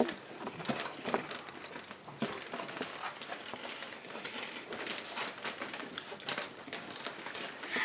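Eating sounds: people chewing vegan burgers and handling their food, heard as many small, irregular clicks and ticks.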